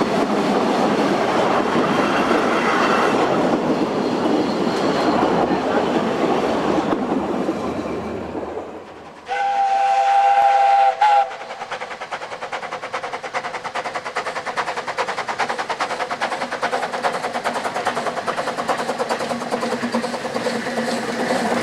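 Narrow-gauge railway coaches rolling and clattering past close by. After a cut, a steam locomotive whistle sounds for about two seconds, then the locomotive's rapid, even exhaust beats as it works its train toward the listener.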